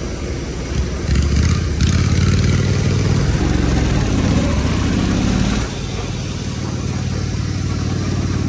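Riding lawn mower engine running under way, heard from the driver's seat. It gets louder about a second in, then eases off a little over halfway through.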